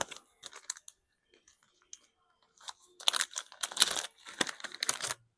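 Plastic packaging being handled, crinkling and tearing in irregular crackles that come thickest in the last two seconds, as a replacement iPhone charging-port flex is taken out of its packet.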